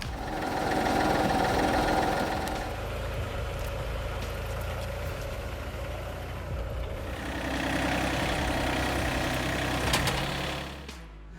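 An engine running steadily, swelling louder about a second in and again around eight seconds in, then dropping away just before the end.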